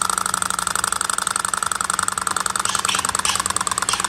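Small walking-beam Stirling engine with a glass displacer tube, spun by a flick of the flywheel, its pistons and beam linkage clattering in a rapid, even rhythm. The hot end is not yet hot enough for it to keep running on its own.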